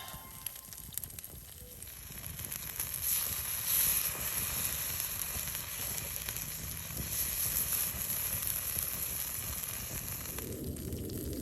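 Food sizzling over a wood fire on a fire-pit grill, a steady hiss that swells about two seconds in.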